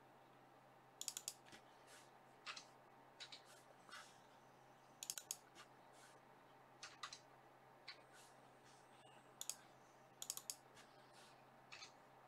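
Computer keyboard typing: scattered sharp key clicks in short quick runs of two to four, with pauses between, over a faint steady hum.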